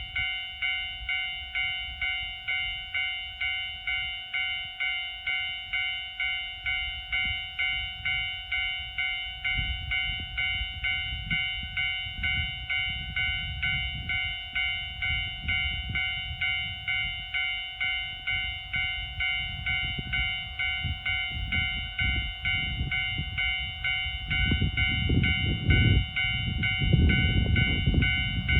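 Japanese railway level-crossing alarm ringing, a pulsing electronic bell of about two strokes a second, warning of an approaching train on JR Hokkaido's Sōya Main Line. Beneath it a low train rumble builds from about ten seconds in and grows loud near the end as the train reaches the crossing.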